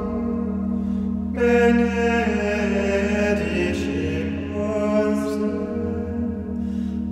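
Gregorian chant sung by the canons, men's voices in unison over a steady low held note. A new phrase begins about a second and a half in.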